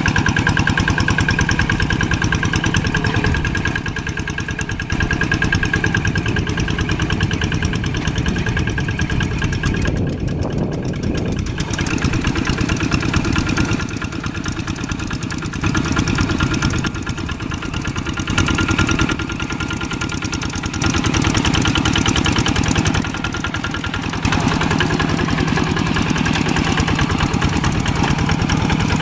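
Old tractor engine running steadily, its loudness and tone shifting abruptly every few seconds.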